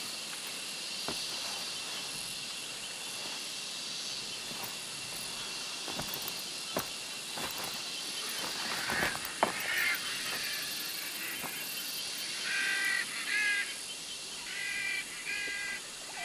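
Steady chorus of insects with a constant high whine, with a few sharp clicks and knocks in the middle. About three-quarters of the way through come two short groups of pitched bird calls.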